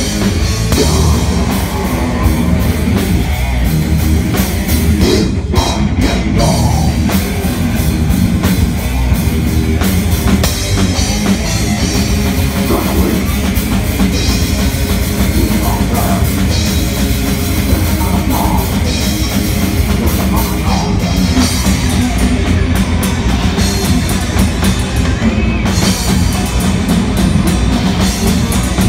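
Death metal band playing live at full volume: distorted electric guitar over a drum kit, with no letup.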